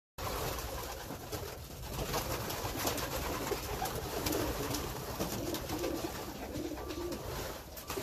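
Racing pigeons cooing in their loft, with a run of short low coos through the middle and scattered sharp clicks.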